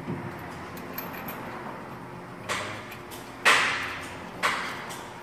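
A few sharp knocks about a second apart, each trailing off briefly, the loudest just past the middle: a tool striking the steel steering knuckle and ball-joint hardware on a pickup's front suspension as the ball joints are seated.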